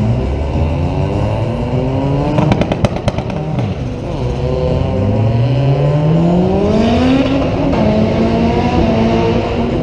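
Drag car doing a burnout: its engine is revved hard in rising sweeps while the rear tyres spin, with a quick crackle about two and a half seconds in. A hiss joins near the end as the engine holds at high revs.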